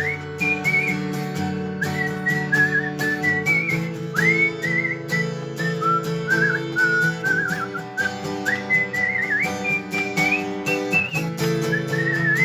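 A whistled melody over acoustic guitar: one high, wavering tune in short phrases, with the guitar chords running steadily underneath.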